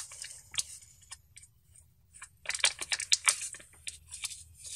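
Small plastic bags crinkling and rustling as hands handle them: scattered crackles and light clicks, busiest from about halfway through.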